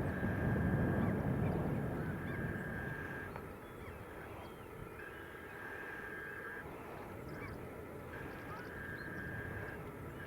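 Seagulls calling repeatedly over a ploughing tractor, whose engine rumble is strongest at first and fades after about two seconds as it moves away. A steady high whine sounds and breaks off three times.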